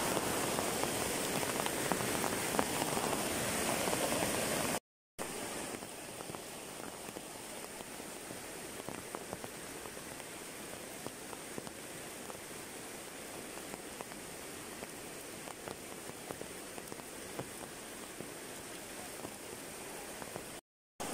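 Steady rain with floodwater rushing over a submerged crossing, a full noisy wash. After a short break about five seconds in, quieter steady rain with faint scattered patter.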